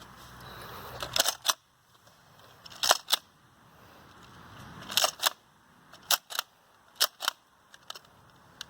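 Nerf pistols clicking: sharp plastic clacks, mostly in pairs about a quarter second apart, repeating every second or two, typical of the blasters being primed and fired.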